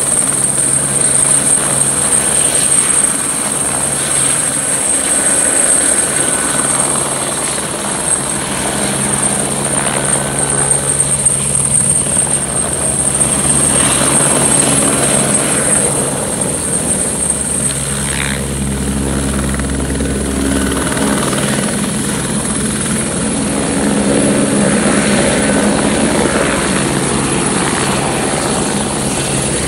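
Light helicopter hovering low and hover-taxiing away across a helipad: steady rotor noise with a constant high turbine whine.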